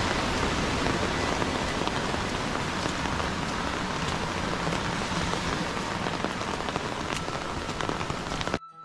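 Heavy rain falling on dense foliage and a muddy path: a steady, dense hiss that cuts off suddenly near the end.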